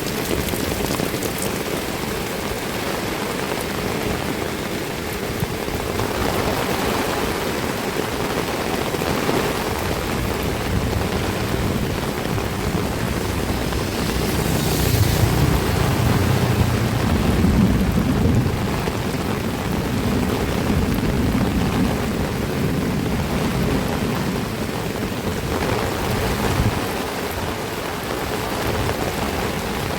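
Heavy rain pouring steadily. About halfway through, a deep low rumble swells and rolls on for several seconds under the rain before fading.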